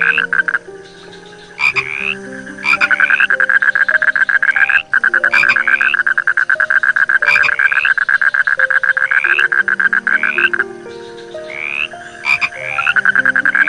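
Frogs calling: a loud, fast pulsed trill that breaks off twice and starts again, with short rising chirps repeating every second or two.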